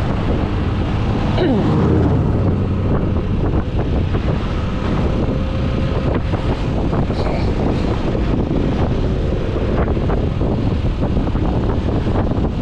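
Wind buffeting the microphone on a moving motorcycle, over the steady noise of the bike's engine and tyres on the road. A falling tone passes about a second and a half in.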